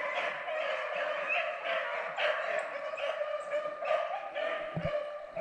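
Beagles baying on a rabbit's trail: their overlapping cries repeat several times a second without a break, the sound of the dogs running a rabbit.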